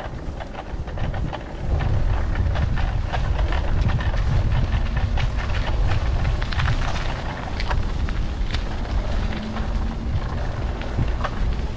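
Wind buffeting the microphone of a moving bicycle, a heavy low rumble that swells about two seconds in and stays, with many small clicks and crackles over it.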